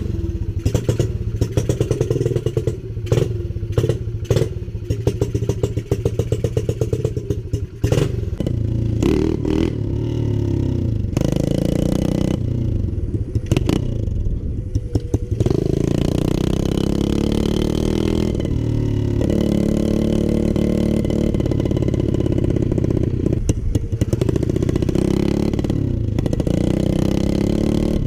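Lifan 125cc single-cylinder four-stroke engine on a pit bike, idling with a steady clattering beat for the first several seconds, then revving and pulling away, its pitch rising, falling and stepping through gear changes as the bike rides along.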